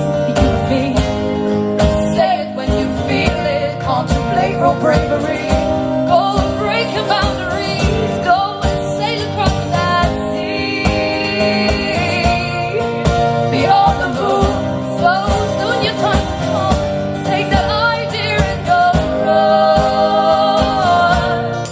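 Live acoustic music: female singing over strummed acoustic guitar, with a steady strummed rhythm throughout.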